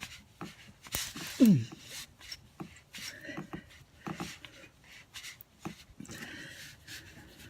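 Tire plug insertion tool being forced into a screw hole in a car tire: scattered clicks and rubbing. About a second and a half in there is a short grunt of effort that falls in pitch, the loudest sound.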